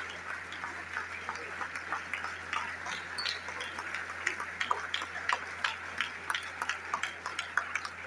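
Audience applauding, with many sharp individual claps close by that grow denser and louder in the second half.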